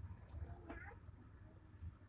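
Faint sounds of cats at play: one short meow about two-thirds of a second in, with a few soft thumps.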